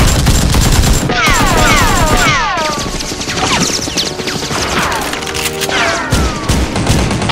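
Rapid automatic gunfire sound effects in several bursts, each followed by falling whining tones, dubbed over Nerf blaster shooting. The firing thins out in the middle and picks up again near the end.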